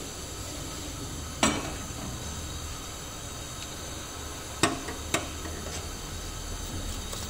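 Stainless-steel kitchenware handled over a steady hiss: a saucepan knocks down once with a short ring, then a metal spoon clinks twice as it is laid on a stainless-steel sink drainer.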